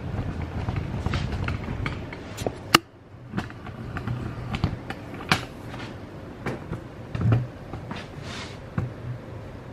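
Handling noise from a camera being moved and repositioned: scattered light clicks, knocks and creaks, with one sharp click about three seconds in, over a low steady hum.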